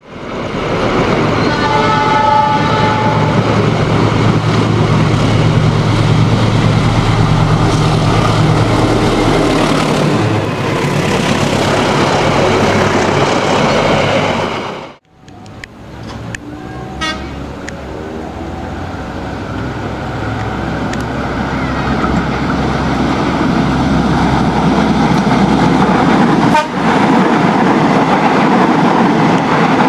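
Diesel-hauled passenger train passing at speed: its horn sounds a chord about two seconds in, over a steady engine hum and the rumble and clatter of the coaches on the rails. About halfway through, the sound cuts off abruptly and a second train, a diesel multiple unit, runs past, growing louder toward the end.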